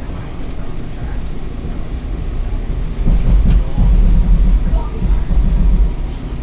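Metra commuter train running, a steady low rumble that grows louder about three seconds in and eases off near the end.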